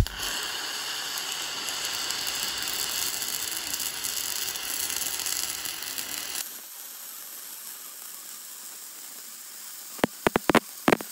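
MIG welding arc running metal-cored steel wire through a Fronius TransSteel 2700, laying a fill pass on a multi-pass weld: a loud, steady crackling hiss. About six seconds in it drops to a quieter, thinner hiss, and near the end comes a quick run of sharp, loud pops.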